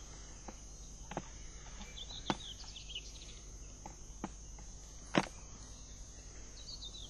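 Steady, faint chirring of insects, with a few short chirps, under several soft clicks and taps from a penknife and a mackerel fillet being handled on a plastic cool-box lid; the sharpest tap comes about five seconds in.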